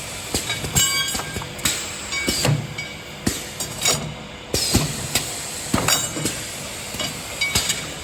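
Automatic four-head drilling machine running its automatic cycle: irregular clacks and knocks about once a second, several with a short burst of hiss.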